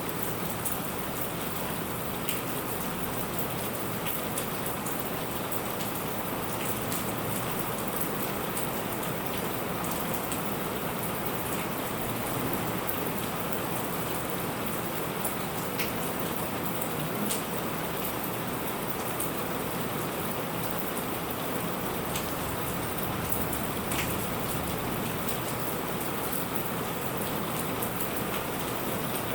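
Steady rain falling, an even hiss with scattered sharp drop ticks, and no thunder.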